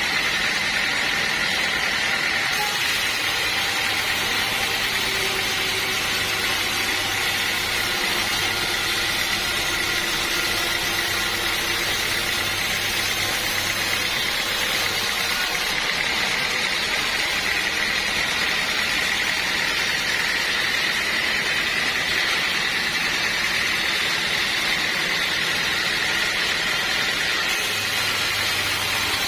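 Sawmill machinery running steadily: a continuous saw-and-motor noise with a high, even whine.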